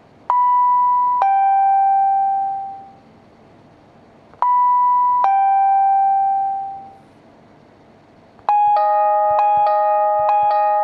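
Notes from a smartphone piano app, played as a train door chime: a high-then-low two-note ding-dong, the low note held and fading, sounded twice. Near the end a faster chime starts, with quick strikes alternating between two lower notes.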